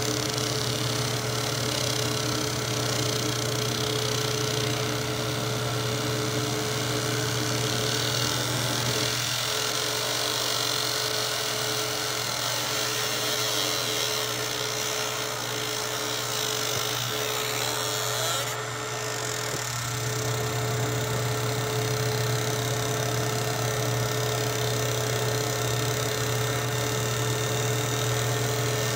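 Laser engraving machine running as it marks a steel 1911 pistol slide: a steady electric buzz and hum with a constant high hiss.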